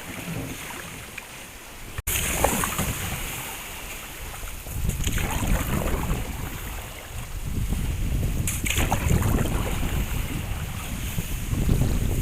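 Wind buffeting the microphone over open water as a canoe travels, with faint water sounds. There is a sudden break about two seconds in, and the low wind rumble grows stronger from about five seconds on.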